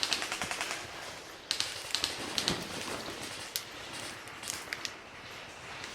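Airsoft guns firing: a rapid automatic burst of clicking shots at the start, then scattered single shots and sharp cracks.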